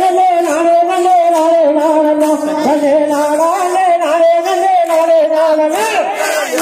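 Tamil folk song accompanying a Kongu group dance: a singing voice over a sustained, slightly wavering melodic tone, with a regular beat of light, sharp percussion.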